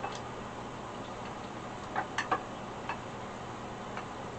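A spoon knocking and scraping against a ceramic slow-cooker crock while stirring meatballs in sauce: a few light clicks, with a quick run of three about two seconds in and single ones after.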